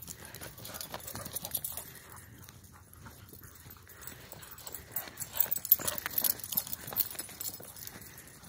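Footsteps crunching through fresh snow, with dogs running about close by; the crunches are thickest and loudest about five to seven seconds in.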